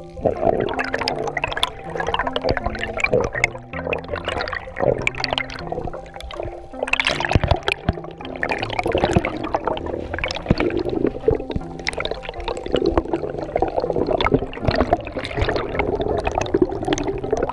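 Underwater bubbling and rushing water heard through a GoPro's waterproof housing, starting suddenly, with air bubbles streaming past the camera. Background music plays underneath.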